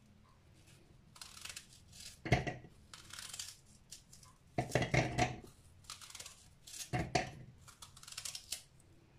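Knife cutting a raw onion held in the hand, a run of crisp crunchy slicing sounds. There are three louder knocks as chunks drop into the plastic bowl of a mini chopper, about two seconds in, around five seconds and around seven seconds.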